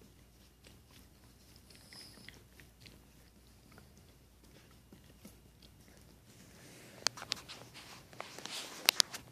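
Basset hound licking a poodle's face: quiet, irregular wet smacks and mouth clicks, growing louder and busier near the end with a few sharp clicks.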